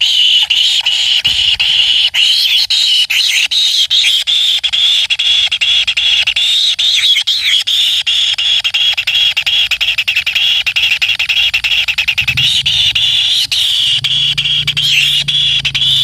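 Kingfisher nestlings begging in their burrow nest: a dense, continuous high-pitched buzzing chatter of rapid pulsed calls. A low hum joins underneath near the end.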